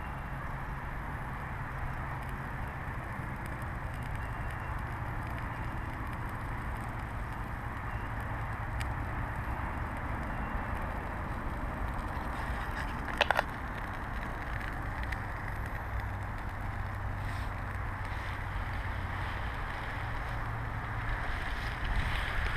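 Small wood campfire catching in a pyramid of thin sticks, with occasional faint crackles and one sharper pop about 13 seconds in, over a steady low rumble and hiss.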